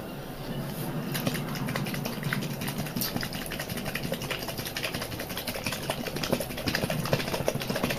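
A plastic Flush Force toy toilet filled with water being shaken by hand, giving a fast, irregular rattle of small clicks from about a second in, over a steady low hum.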